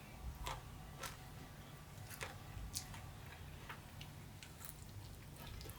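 Faint, irregular wet clicks of someone chewing and eating chicken wings close to the microphone.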